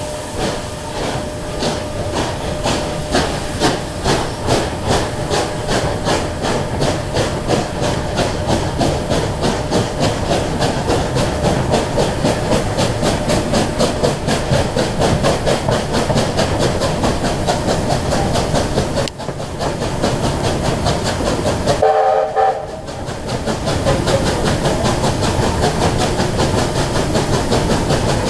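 Steam locomotive working hard, its exhaust beating in a steady rhythm of a few chuffs a second over a hiss of steam. About 22 seconds in it gives one short whistle blast.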